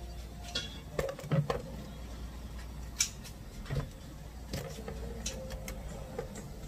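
Pots, pans and cooking utensils knocking and clattering: about half a dozen light clicks and knocks spread through the few seconds, over a steady low hum.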